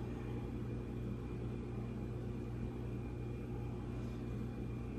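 Steady low machine hum with no change, with two faint ticks, one near the start and one about four seconds in.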